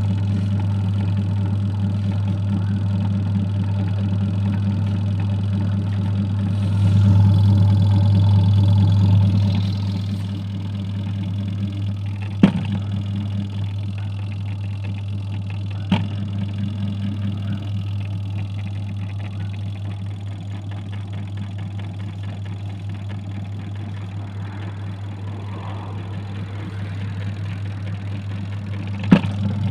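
Adler AD8051 mini washing machine running on its wool cycle: a steady motor hum, louder for a few seconds about a quarter of the way in, then settling lower, with three sharp clicks later on.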